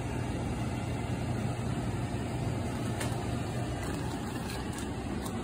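Steady low mechanical hum with an airy rushing noise over it, and a few faint clicks.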